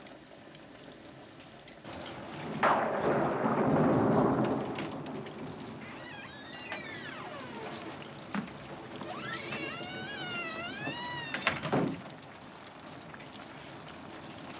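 Steady rain, with a loud rumble swelling up about three seconds in and dying away, and two wavering, gliding high calls, a short one and then a longer one.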